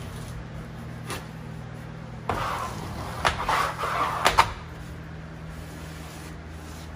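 Plastic wallpaper smoother rubbing and scraping over cork wallcovering for about two seconds, with a few sharp clicks, over a steady low hum. A single click comes about a second in.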